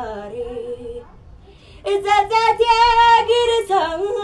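A young girl singing unaccompanied: a short phrase, a pause of under a second, then a louder phrase ending in a long held note that wavers in pitch.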